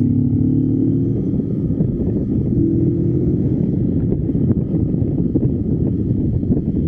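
Motorcycle on the move: a steady rumble of engine and wind noise on the microphone, with the engine's pitched hum showing through briefly near the start and again about three seconds in.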